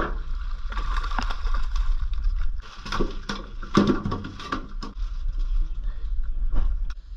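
Knocks and clatters of a freshly landed fish on the floor of a small boat as it is handled and unhooked with long-nosed pliers, thickest in the middle of the stretch, over a steady rumble of wind on the microphone.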